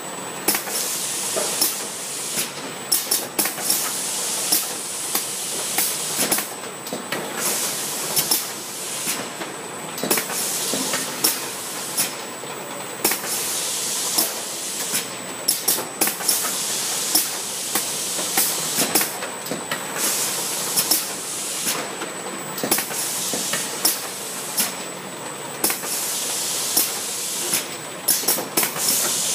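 Pick-and-place tray loader for ricotta tubs running: its pneumatic gripper heads clack and release short bursts of air over a continuous hiss as the tubs are picked and set into trays.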